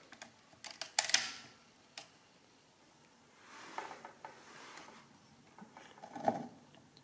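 Mechanical clicks and clunks from a Schubert DRV pinwheel calculator's clearing mechanism as its clearing lever is worked: a quick run of sharp clicks with the loudest about a second in, a faint rattle around four seconds, and one more clunk near the end.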